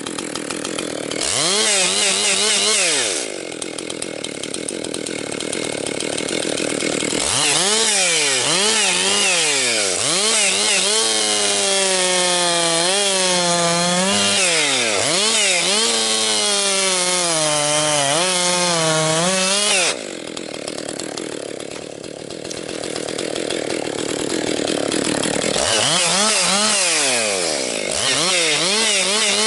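Husqvarna 262XP two-stroke chainsaw, freshly rebuilt, bucking firewood: it revs up to full throttle for three cuts, a short one, a long one and another near the end, its pitch wavering and dipping under load in the wood, and drops back to lower revs between cuts.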